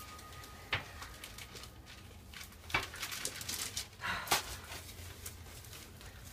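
A few faint knocks and rustles of things being handled: three soft clicks spread across the stretch, with a brief rustle around the third.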